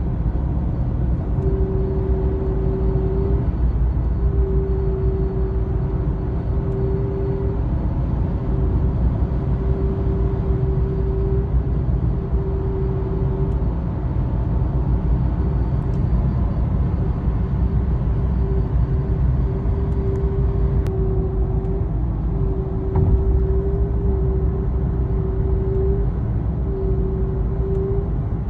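Car brake noise: a single low hum-like tone that sounds for a second or two at a time and briefly drops out, over and over, above steady road and engine rumble while driving. The owner is unsure whether it comes from the brake discs or the pads.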